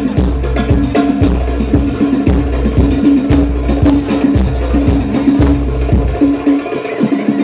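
Sholawat music with rebana hand-drum percussion and tambourine jingles over deep drum beats and a held melodic line, played loud through a PA sound system and recorded close to the speakers. The deep beats drop out about six seconds in.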